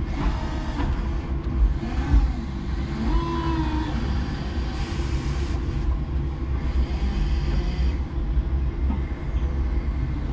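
A 5-ton electric forklift running, heard from inside its cab: a steady low rumble and hum of the machine on the move, with a short hiss about five seconds in.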